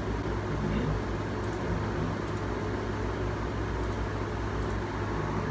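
Steady low hum and even hiss of room noise, with no distinct event.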